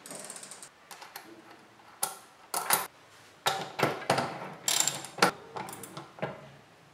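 Irregular sharp metal clicks and clinks from a Pacific 9-speed cassette on a Shimano Parallax rear hub, as its lockring is threaded on by hand and a lockring tool is set onto it.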